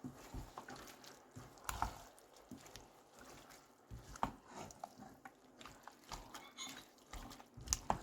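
Spoon stirring a thick minced-meat and vegetable filling in a pot, with wet squelching and irregular knocks of the spoon against the pot as flour and water are mixed in.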